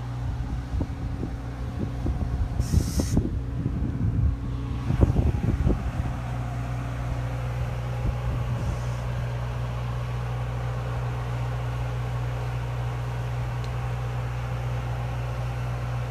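An engine running steadily with an even low hum. For the first several seconds, gusts buffet the microphone in irregular rumbling bursts.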